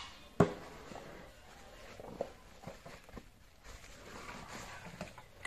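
Elephant calf and its mother moving over dry dirt and leaves: scattered faint scuffs and steps, with a sharp knock about half a second in.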